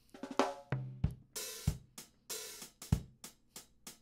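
Sampled acoustic drum kit from the Premier Sound Factory Drum Tree library playing a reggae groove, with sharp kick and snare hits and ringing cymbal washes.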